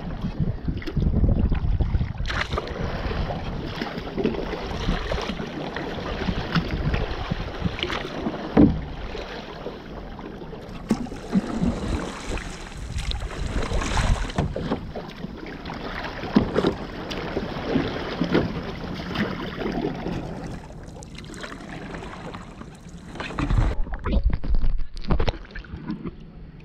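A sit-on-top kayak being paddled: water splashes irregularly and sloshes around the plastic hull. Low gusts of wind rumble on the microphone near the start and again near the end.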